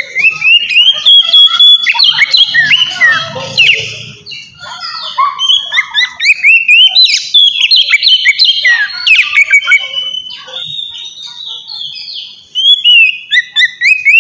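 Oriental magpie-robin (kacer) singing loudly in full song, a fast unbroken run of clear whistles, up-and-down glides and sharp clicks, pausing briefly near the end before carrying on.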